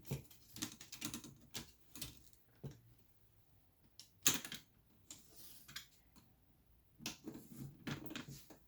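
Irregular plastic clicks and taps from a laptop's plastic screen bezel being handled and pushed over the hinges into place, with one louder click about four seconds in.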